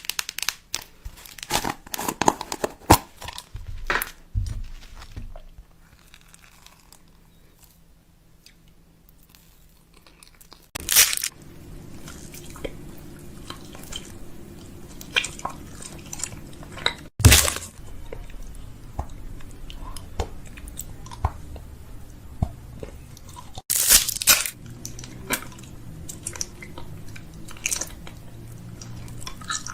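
Items being handled and set into a fridge during restocking: a string of sharp clicks, knocks and crunchy rustles from containers and packaging, with a quieter stretch about five to ten seconds in.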